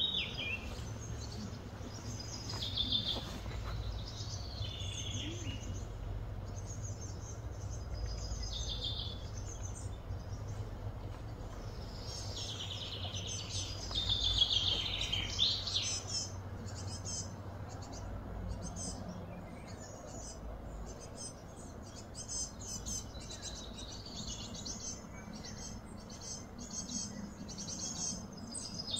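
Birds chirping and calling in short repeated phrases over a steady low rumble of background noise. The calls are busiest about halfway through.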